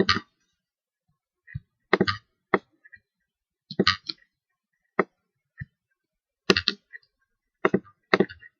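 A series of about ten sharp clicks and knocks at an uneven pace, some in quick pairs, with silence between them.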